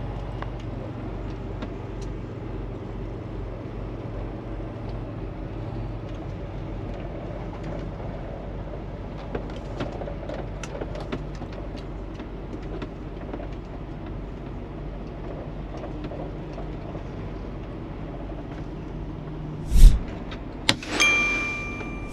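Semi-truck engine running with a steady low rumble. Near the end a loud thump, then a second loud knock with a short beep.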